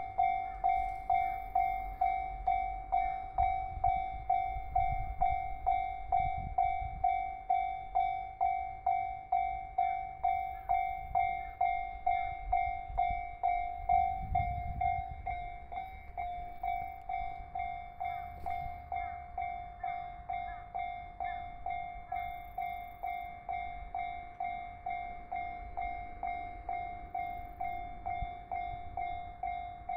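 Railway level-crossing warning bell ringing steadily, one tone struck about one and a half times a second: the crossing is closed for a train. It gets a little quieter about halfway through, and a low train rumble runs under it in the first half.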